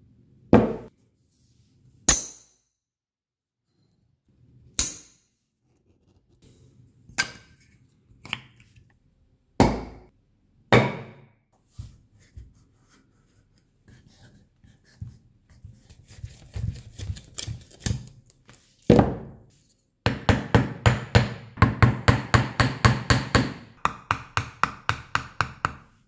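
Large Goliath neodymium block magnets snapping together with sharp clacks, one every second or two, then a softer stretch of scraping and sliding. Near the end another hard clack is followed by a fast, even run of clicks, about four a second.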